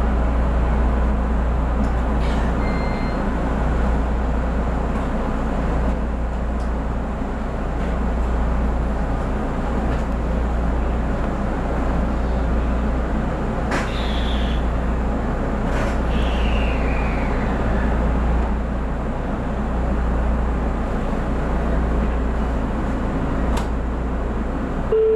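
Steady low hum in the cab of a JR Central 313 series electric train standing still, its onboard equipment running. About halfway through, two sharp clicks are each followed by a short falling chirp.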